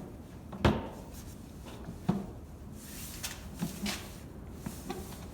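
RV exterior baggage door being shut onto its new magnetic catch: a sharp knock under a second in, a lighter knock about two seconds in, then a few faint clicks.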